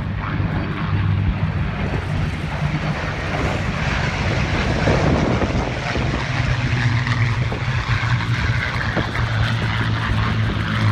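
Formation of Second World War piston-engined fighter planes flying past, their propeller engines making a steady drone.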